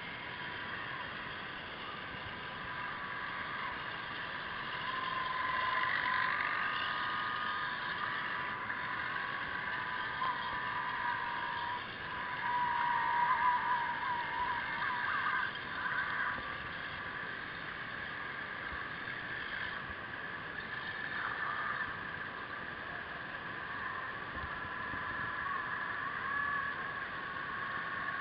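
Whine of radio-controlled model submarines' small electric motors and propellers heard underwater: several thin tones close in pitch that waver up and down, louder around the middle, over a steady hiss.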